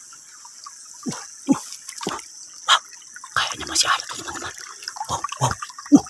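A hand splashing and sloshing in shallow muddy water: a few separate splashes at first, then quicker, busier splashing from about three seconds in.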